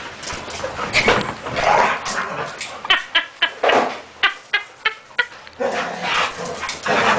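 Dogs play-fighting, with a run of short, quick yips and barks in the middle.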